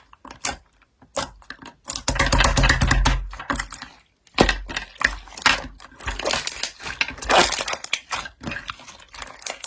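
Slime being squeezed and pressed by hand, crackling and popping in uneven bursts of many small clicks.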